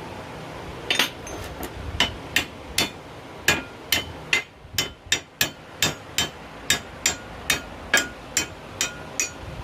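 Hammer striking the metal parts of a small locomotive's axle hanger: a steady run of blows, about three a second, each with a short metallic ring.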